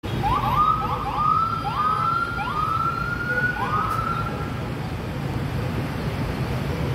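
A siren sounding in a series of about six quick rising sweeps that each level off and grow longer, dying away about four seconds in. Beneath it, the steady rumble of dense road traffic of motorbikes, cars and buses.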